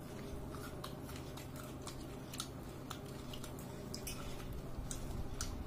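Close-up eating sounds of chewing and mouth smacks, heard as a scatter of small, irregular wet clicks over a faint steady hum.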